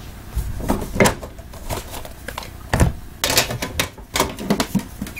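Irregular clicks, taps and knocks of sealed card boxes and hard-sided box cases being handled and shifted on a tabletop, thickest about three seconds in.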